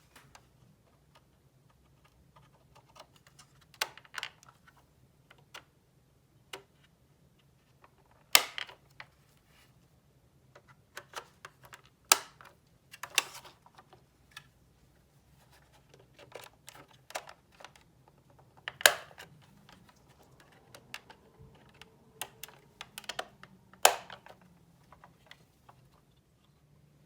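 Scattered small clicks and taps at irregular intervals as parts of a Porsche 911 Turbo model car are handled, with a few sharper clicks standing out, over a faint steady hum.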